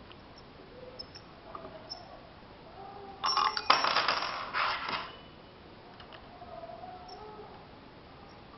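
Metal clinking and rattling for under two seconds, about three seconds in: an Allen key knocking against the steel frame and rods of a label dispenser as it is worked by hand. Faint handling sounds before and after.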